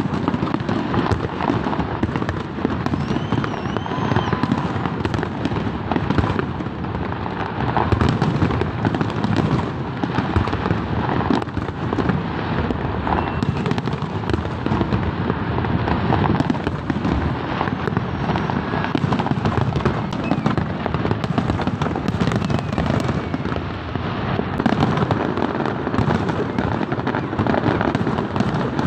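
Aerial fireworks bursting in a dense, continuous barrage of booms and crackles, with no pause between them. A few high whistles rise and fall about three to four seconds in.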